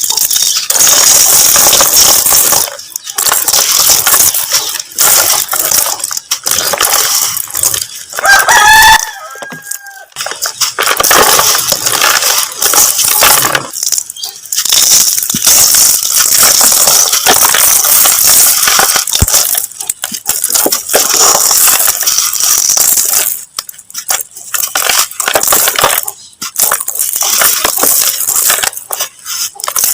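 Dried mud crumbling and crunching: dense crackly crunching in long stretches broken by short pauses. A brief high call with bending pitch cuts in about nine seconds in.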